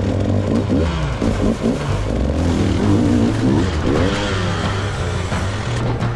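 Dirt bike engine revving in repeated short bursts, its pitch rising and falling as the rider feeds throttle over the rocks.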